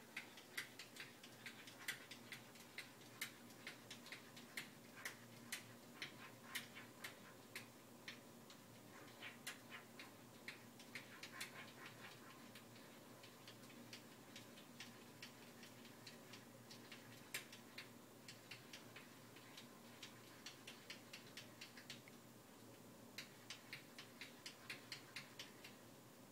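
A cat's claws tapping and scratching on mirror glass as it paws at its reflection: faint, quick runs of sharp ticks with short pauses between them.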